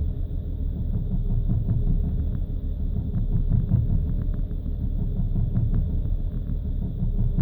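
BMW engine idling roughly when cold, its rumble wavering unevenly with faint ticks over it; the uploader puts the rough idle and stumbling revs down to faulty fuel injectors.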